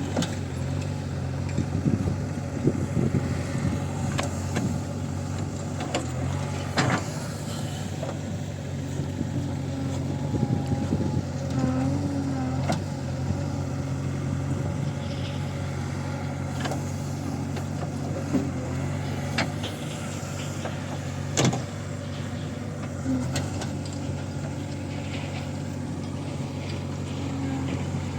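Backhoe loader's diesel engine running steadily while working, with scattered sharp knocks, the loudest about two-thirds of the way through.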